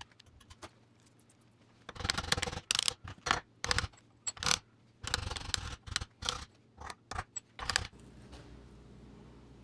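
Irregular metallic clinking and scraping as a Caterpillar D6C's stuck thermostat and its spring cage are worked and wiggled in their housing. The clinks start about two seconds in and die away near the end.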